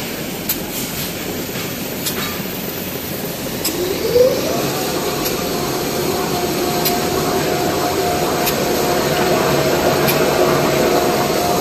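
XY-TQ-A-G toilet paper and kitchen towel paper machine running with a steady mechanical whir. About four seconds in, a motor tone rises in pitch as the machine speeds up, then holds steady, with a light click about every second and a half.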